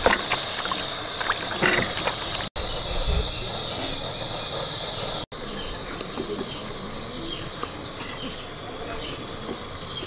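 Water splashing and swishing as hands wash mangoes in a plastic basin, over a steady high insect drone. From about halfway, light taps of a knife on a wooden chopping board as a tomato is sliced.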